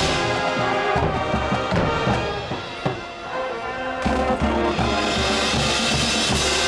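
Marching band of brass, woodwinds and percussion playing a field show: held brass chords with drums, easing off briefly in the middle and coming back in full with low drum strokes about four seconds in.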